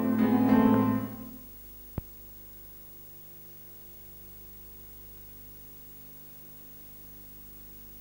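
Acoustic guitar playing, its last chord dying away about a second and a half in. A single click at about two seconds, then a faint steady hum.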